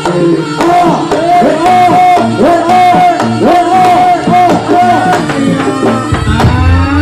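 Live jaranan music: drums beaten in a quick pattern under a melody that rises and falls in short repeated arches. A deep low note sounds near the end.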